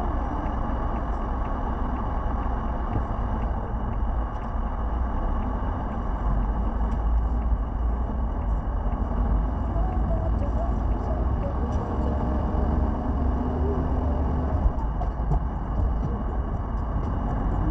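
Steady road and engine noise of a moving car, heard from inside the cabin: a continuous low rumble and hiss.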